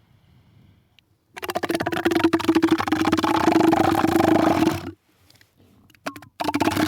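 Elephant seal giving a loud, throaty pulsed call of rapid beats on a steady low pitch, lasting about three and a half seconds. Two shorter bursts of the same call come near the end.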